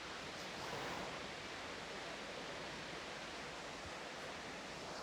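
Steady, even rushing background noise with no distinct events, slightly louder about a second in.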